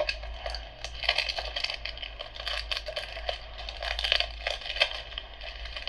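Packaging crinkling, with irregular small clicks and crackles, as a wrapped Blu-ray case is handled.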